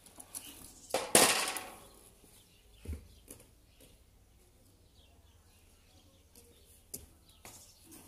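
A lovebird briefly flutters its wings in a wire cage about a second in. This is followed by a dull thump and, later, a few light clicks.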